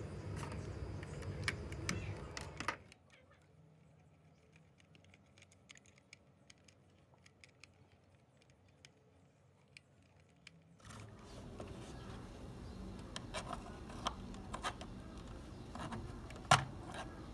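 Small hard parts clicking and clinking in scattered light taps over a low hum, with one sharper click near the end. The hum drops away for several seconds in the middle.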